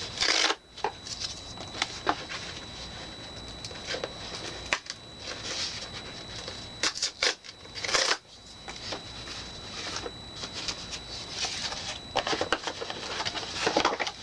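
A cardboard box and its paper packaging being handled and unpacked: irregular rustling and crinkling with scattered small clicks, taps and scrapes.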